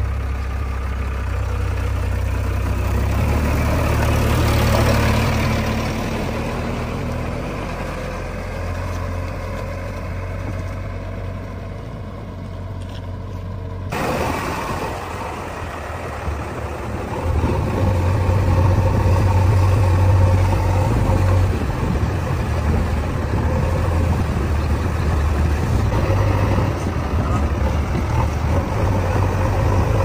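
JCB 3DX backhoe loader's diesel engine running steadily as the machine drives with its front bucket raised. The sound changes abruptly about halfway through and is louder in the second half.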